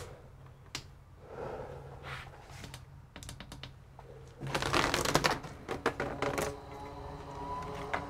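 Rapid clicking and clattering of small hard objects for about two seconds, starting about halfway through, over a steady low hum; a few single clicks come before it. Near the end a steady multi-tone hum starts, one tone slowly rising in pitch.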